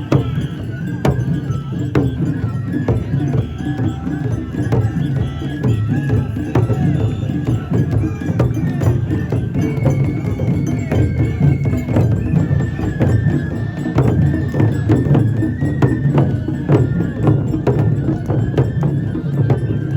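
Traditional Japanese festival music: a high melody of held notes over drums and sharp wooden knocks, with a dense crowd of shrine bearers beneath.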